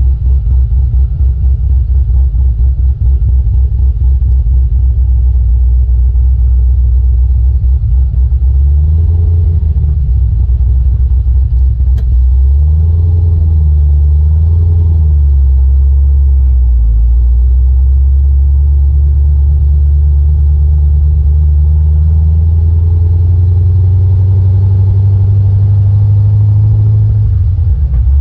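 Car driving, heard from a GoPro mounted inside the rear wheel arch: loud low road and tyre rumble with wind buffeting, fluttering at first, then a steadier drone. One sharp click about twelve seconds in.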